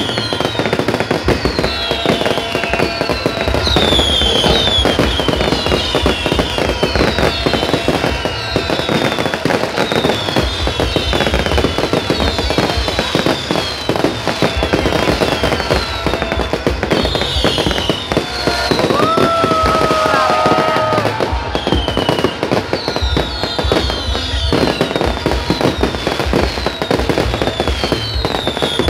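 Aerial fireworks going off continuously, with rapid bangs and crackling and many short high whistles falling in pitch. About two-thirds of the way in, a steady held tone lasts roughly two seconds.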